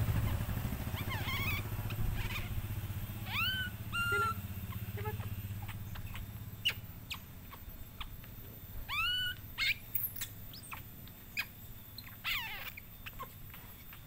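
Short, high chirping calls, each rising and then levelling off, about five times. Under them a low motor hum fades away during the first half, and a few faint clicks come later.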